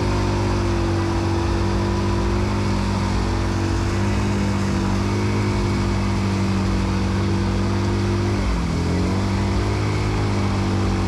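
ATV engine running at steady high revs under load while stuck in deep mud. The revs dip briefly about eight and a half seconds in, then pick back up.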